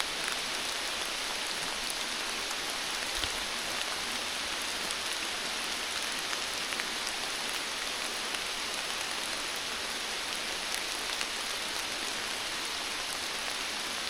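Steady rain falling through the woods, an even hiss with scattered drip ticks.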